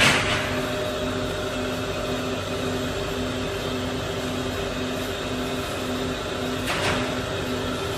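Factory machinery running steadily, a hum with a tone that pulses about twice a second. A short hiss comes at the start and another near the end.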